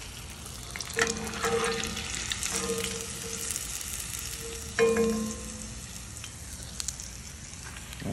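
Hot frying oil sizzling steadily in a cast-iron skillet. A metal skimmer scrapes and clinks against the pan about a second in and again near five seconds, while crumbs are scooped out of the oil.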